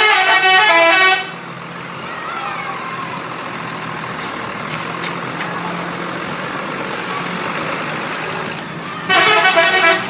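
A bus's multi-tone 'telolet' musical horn plays a short tune of alternating notes. Then comes several seconds of steady traffic and engine noise, and the horn sounds again briefly near the end.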